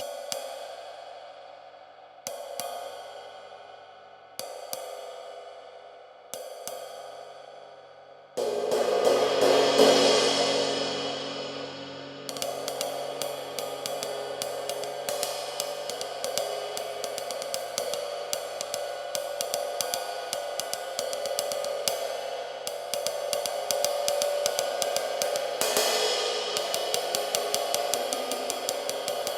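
A 21-inch flat-bell lathed ride cymbal played with a stick. It is struck four times singly, each strike ringing out and fading. Then comes one loud crashing hit that swells and washes, followed by a fast continuous ride pattern over a building wash, with another loud accent near the end.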